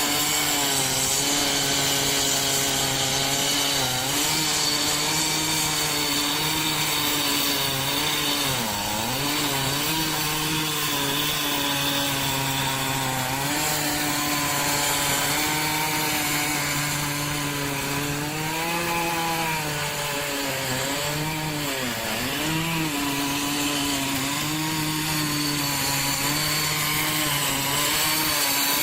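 Long-bar chainsaw running at high revs while cutting through a thick oak log. Its engine note dips and recovers several times as it bogs under load in the cut, most clearly about a third of the way in and again around two-thirds.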